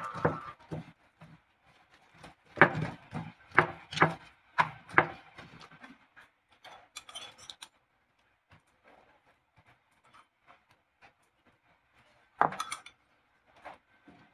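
Frying pan and utensils knocking and clattering while keto pizza dough is pressed flat in the pan: a sharp knock at the start, a quick run of about six knocks a few seconds in, then a quiet stretch before a spoon knocks against the pan twice near the end.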